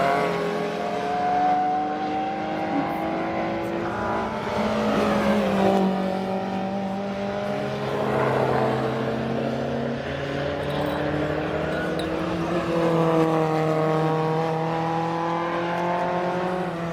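Race car engines at speed as several cars pass one after another, the engine notes rising and falling in pitch and overlapping.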